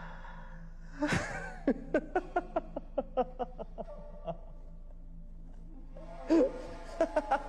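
A man laughing: a burst about a second in, then a run of short "ha" pulses that slows and fades over about three seconds, and a second short laugh near the end.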